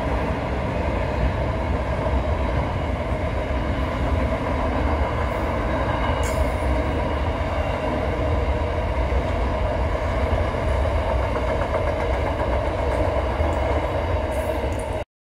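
Intermodal freight train's container wagons rolling past, a steady rumble of wheels on the rails. It cuts off abruptly near the end.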